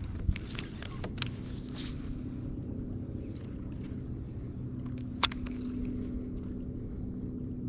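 A steady low motor hum and rumble, with three short sharp clicks, the loudest about five seconds in.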